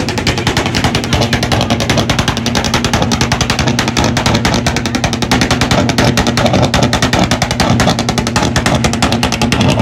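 A car engine held at high revs on its rev limiter, the exhaust firing a rapid, even string of pops over a steady engine note.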